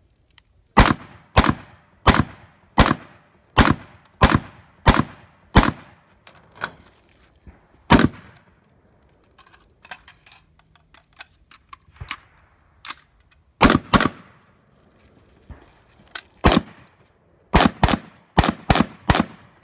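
Gunshots on a shooting range, each with a short echo. About nine shots at an even pace of roughly one every two-thirds of a second, one more a couple of seconds later, then a lull with faint clicks and rattles of the shooter moving, and then quicker shots in pairs and tight groups near the end.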